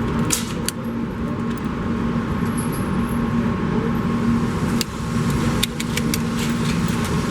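Steady droning hum of an indoor shooting range's ventilation, with a few faint clicks.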